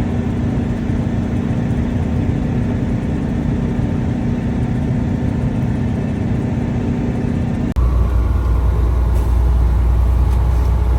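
Motor vehicle engine running steadily with an even hum; it cuts off abruptly about three-quarters of the way through, and a louder, deeper engine rumble takes over.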